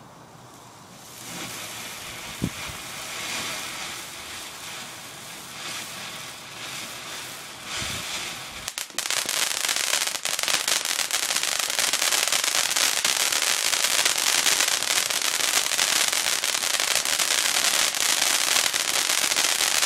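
Garden firework fountain spraying with a hiss, with a short pop about two seconds in. About nine seconds in it jumps to a much louder, dense crackling spray that holds steady.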